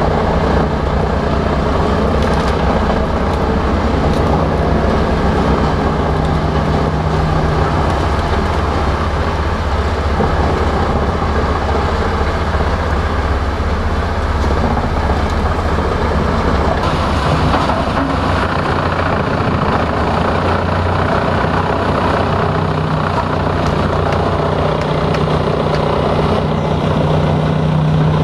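Wüst HD-810 wood chipper driven by a 520 hp Volvo TAD1242 six-cylinder diesel, running steadily under load. About seventeen seconds in, the deep engine note drops away and a brighter rushing noise rises; a steady engine tone comes back a few seconds before the end.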